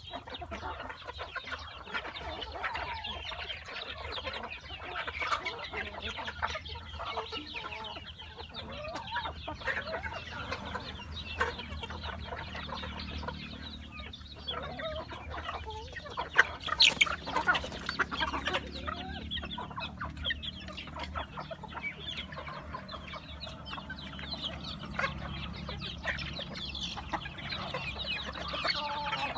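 A large flock of young chickens clucking and chirping continuously while they feed. There is one sharp click just past the middle and a low steady hum underneath.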